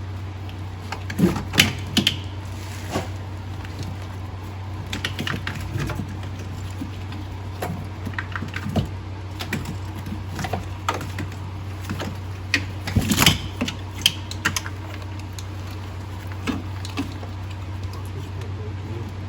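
Irregular clicks, clinks and knocks of hand tools and metal engine parts being worked on, with louder clusters about a second or two in and again around thirteen seconds, over a steady low hum.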